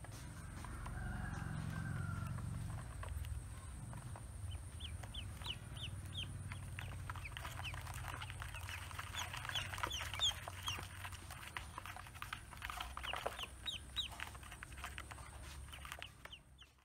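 Newly hatched ducklings peeping: many short, high peeps in quick succession, starting about four seconds in, over a low background rumble.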